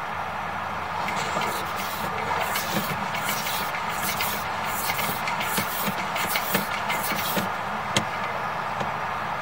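Sewer inspection camera's push-rod cable being fed down the line: a run of scraping, rattling bursts lasting about six seconds, then a single sharp click, over a steady background hum.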